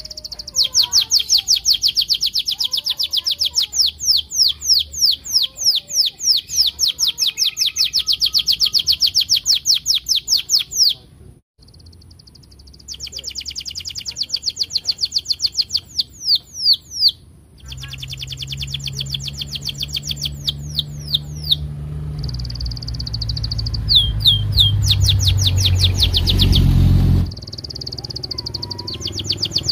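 Domestic canary singing long, fast runs of repeated 'cuit-cuit' notes, about four to five a second, each note sweeping down in pitch, with a couple of short breaks between runs. A low hum sits under the song in the second half and cuts off abruptly near the end.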